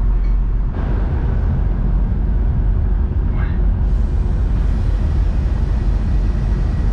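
Steady low rumble with a broad rushing noise from a car ferry under way.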